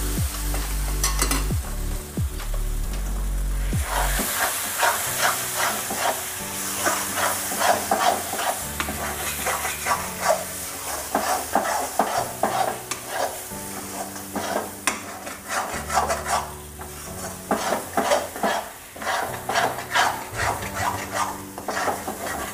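A steel spatula scrapes and stirs a thick cashew-almond paste frying in oil in a metal kadhai, with a sizzle under repeated scraping strokes. The strokes become quick and regular, about two a second, from about four seconds in. The paste is being fried slowly until the oil separates.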